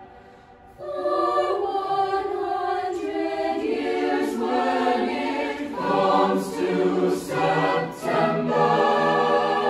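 Mixed-voice a cappella choir singing in close harmony. They come back in after a short breath pause about a second in, and settle into held chords near the end.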